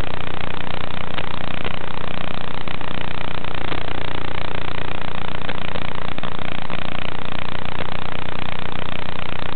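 Steady loud static hiss with a low hum underneath, unchanging throughout, typical of the empty audio channel of an analog FPV video receiver recording; no motor whine rises or falls with the drone's manoeuvres.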